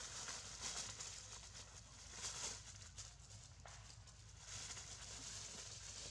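Dry fallen leaves rustling and crunching as macaques walk and shuffle over them, in three short spells.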